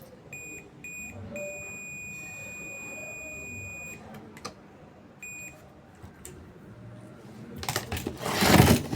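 Electronic buzzer beeping at one high pitch: two short beeps, a long beep of about two and a half seconds, then another short beep. Near the end a loud burst of clattering and knocking noise.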